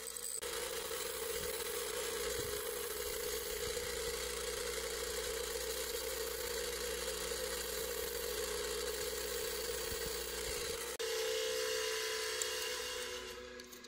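Bench grinder running steadily while a steel screw is held against its wheel and ground down, throwing sparks. The sound changes abruptly about eleven seconds in and fades near the end.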